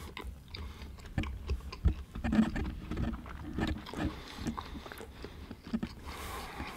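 A person chewing a mouthful of hamburger close to the microphone: irregular soft mouth clicks and smacks over a low steady room rumble.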